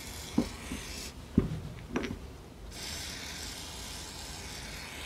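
Metal motorcycle brake caliper parts handled by gloved hands: three light knocks and clicks in the first two seconds, with rubbing and scraping.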